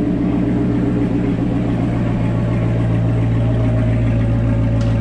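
2019 Chevrolet Corvette Grand Sport's V8 engine idling steadily just after being started.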